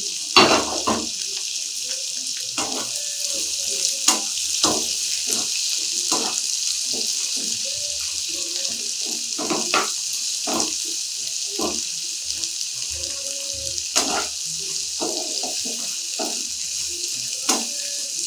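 Sliced onions, tomato and green chillies sizzling in hot mustard oil in a non-stick kadai, a steady hiss, while a wooden spatula stirs them, scraping and knocking against the pan at irregular moments.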